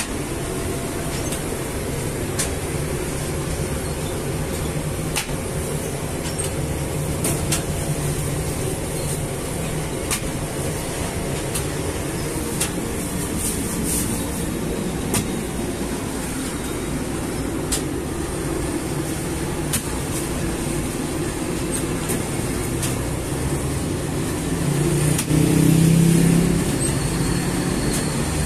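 Steady hum and rumble of semi-automatic bakery machinery (dough-sheet conveyor and rotating oven), with sharp clicks every one to three seconds and a louder low swell for a couple of seconds near the end.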